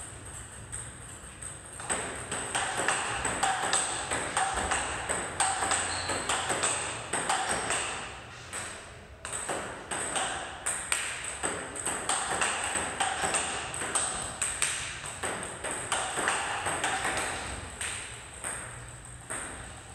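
Table tennis ball clicking off the rackets and the table in a quick, continuous run of hits during a forehand topspin (loop) drill.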